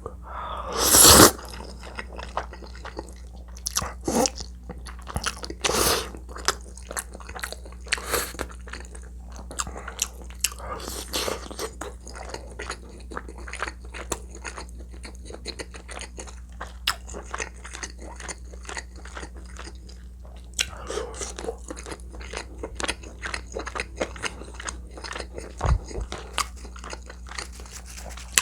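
A person eating close to the microphone: biting and chewing through a meal of spicy braised chicken, Spam and fried eggs, with many short, irregular wet clicks and smacks and a louder burst about a second in.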